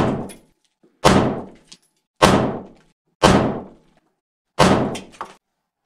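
Four shots from a Glock 17 9 mm pistol, about a second apart, each dying away quickly, with the tail of one more shot at the very start.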